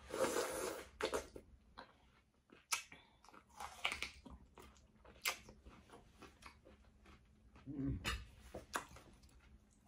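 Close-up eating sounds of a person biting into and chewing slices of watermelon: several loud crisp bites and many wet mouth clicks while chewing.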